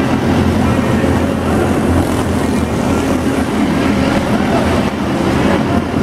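Several small race cars' engines running together as a pack laps an indoor arena track, a loud, steady mechanical din echoing through the hall.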